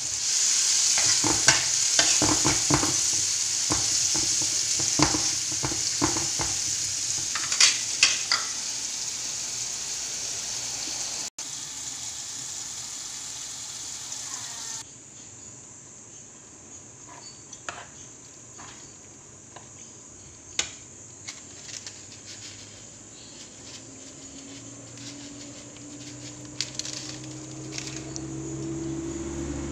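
Diced pork and tomatoes sizzling in a non-stick frying pan, a metal spoon clicking and scraping against the pan as they are stirred. About halfway through the sizzle drops to a faint hiss with a few scattered clicks, and a low rising hum comes in near the end.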